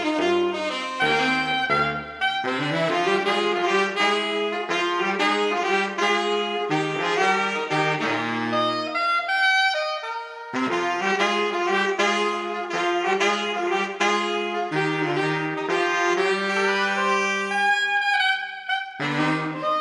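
Saxophone quartet of soprano, alto, tenor and baritone saxophones, all four parts multitracked by one player, playing a jazzy arrangement in chords over a baritone bass line. The music breaks off briefly about halfway through, then carries on.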